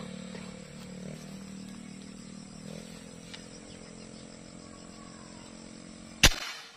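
A steady low mechanical hum that slowly fades, cut off near the end by a single sharp crack, the loudest sound.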